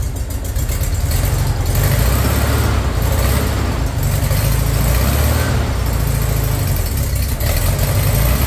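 Freshly rebuilt air-cooled VW Beetle flat-four engine running steadily in the car, with the rear wheels off. It is being loaded through the foot brake to bed in the new piston rings during its first run.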